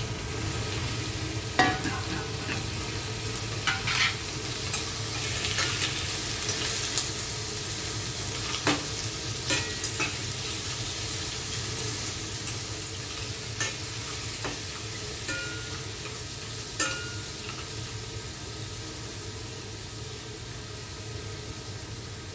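Mixed seafood (mussels, squid rings and prawns) sizzling in hot olive oil in a stainless steel saucepan. Metal tongs clink against the pan now and then as the seafood is turned, and the sizzle eases a little toward the end.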